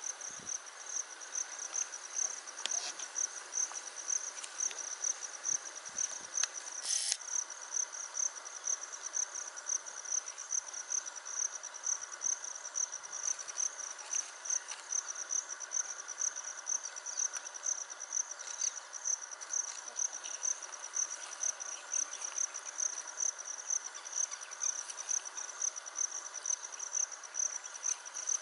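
Insects chirring in a steady high-pitched chorus that pulses about twice a second, with a brief louder burst of hiss about seven seconds in.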